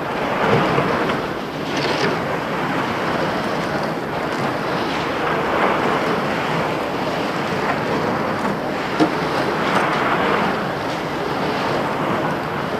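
Steady rushing noise from a camera microphone inside a jacket pocket as the wearer walks: fabric rubbing over the microphone, with street sounds underneath.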